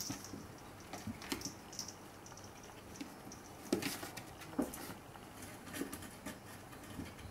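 Chihuahua puppy and kitten scuffling at play, claws tapping and paws scuffing on a wooden floor. Light scattered taps, with a couple of sharper clicks about halfway through.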